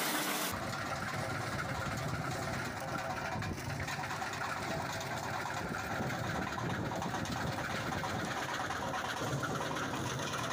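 Tractor-driven (PTO) branch chipper running steadily, with the tractor engine, as branches are fed into the hopper and drawn in.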